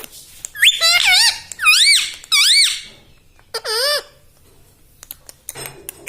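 Indian ringneck parrot giving four loud, high, squeaky calls, each rising and then falling in pitch, within the first four seconds.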